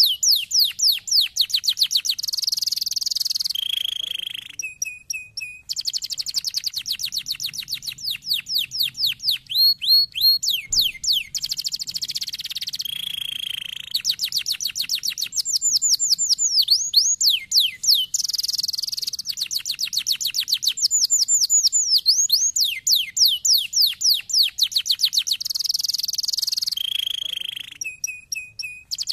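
Domestic canary singing: fast trills of rapidly falling whistled notes, alternating with buzzy rolls and short steady lower notes, with brief pauses about four seconds in and again near the end.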